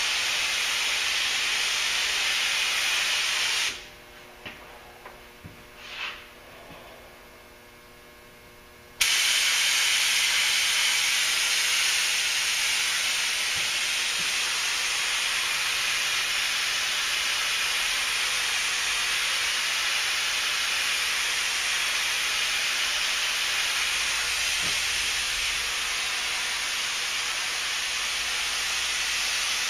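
Gravity-feed paint spray gun hissing steadily as it sprays sealer over a car hood. A few seconds in, the trigger is let go and the hiss stops for about five seconds, with a few faint clicks. Then the spraying starts again abruptly and carries on.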